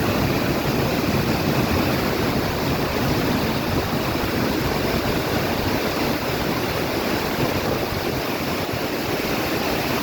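Waterfall pouring into a pool: a steady, even rush of water.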